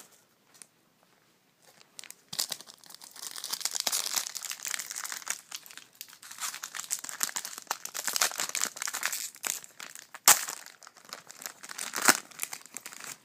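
A Bowman Platinum trading card pack wrapper being torn open and crinkled in the hands. The crinkling starts about two seconds in and goes on irregularly, with two sharper crackles near the end.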